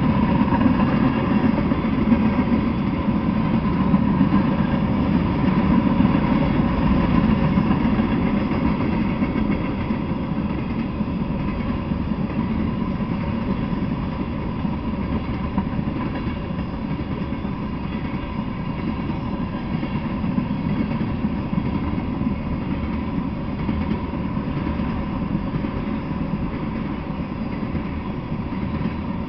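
Freight train of tank cars rolling past, a steady low rumble of steel wheels on the rails, a little louder in the first several seconds.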